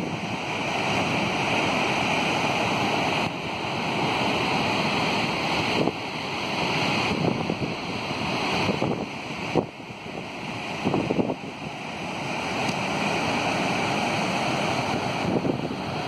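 Steady rushing of a waterfall pouring over rock ledges, with wind buffeting the microphone now and then.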